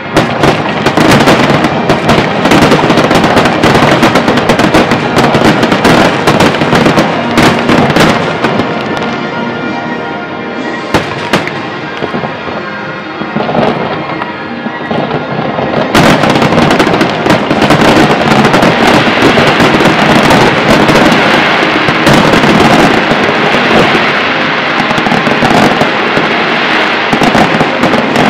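Large fireworks display: a dense barrage of aerial shell bursts and crackle, thinning out between about ten and fifteen seconds in, then heavy again from about sixteen seconds on. Music plays underneath.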